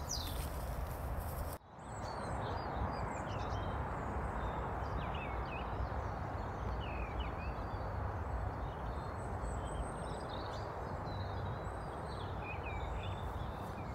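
Small birds chirping on and off over a steady outdoor background of hiss and low rumble; the sound briefly drops out about one and a half seconds in.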